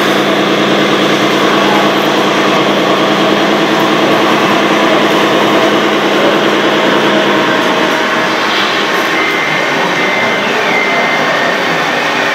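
Radio-controlled scale MAN tipper truck and Liebherr excavator running together, a steady mechanical drone of their motors and drives. About eight seconds in a high whine comes in, with a short glide in pitch near eleven seconds, as the excavator's arm works.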